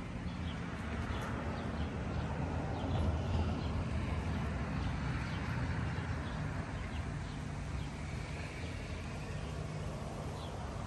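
A steady low rumble of outdoor background noise, with faint short bird chirps over it.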